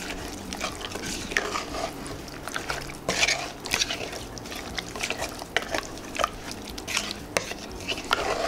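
A wooden spatula stirring chicken pieces, chopped tomatoes, green chillies, spices and water in an aluminium pressure cooker, with irregular scrapes and knocks of the spatula against the pot.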